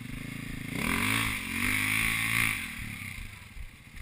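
KTM 300 EXC two-stroke single-cylinder enduro engine running at low revs, then revved about a second in, its pitch rising and holding for a couple of seconds before falling back toward idle.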